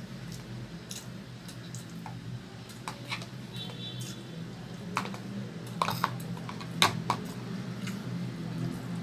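Close-up eating sounds: a person chewing and biting into chicken, irregular wet clicks and crackles, with two sharper ones in the second half. A steady low hum lies underneath.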